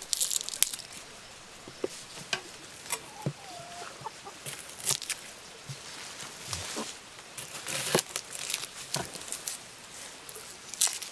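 A large knife cutting onions on a wooden board, giving scattered sharp knocks, with chickens clucking now and then.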